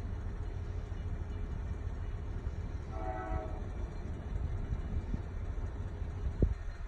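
A distant train horn sounds once, briefly, about three seconds in, over a steady low rumble.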